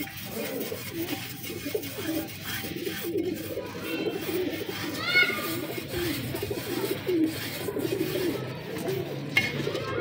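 Domestic pigeons cooing, several calls overlapping and wavering in pitch, with a short higher chirp about five seconds in.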